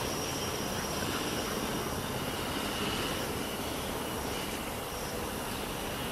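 Steady buzzing drone of a honeybee colony around an opened hive, over a low, unsteady rumble.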